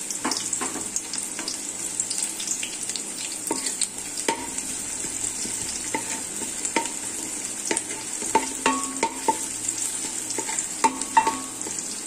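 Chopped shallots and greens sizzling in hot coconut oil in a wide metal pan. A wooden spoon stirs them, scraping and tapping against the pan with many short strokes over a steady hiss.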